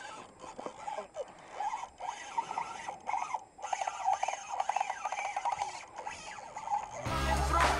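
A fishing reel being worked by hand: squeaky whirring and runs of fast ratchet clicks, densest a few seconds in. About seven seconds in, loud rap music with a heavy beat cuts in.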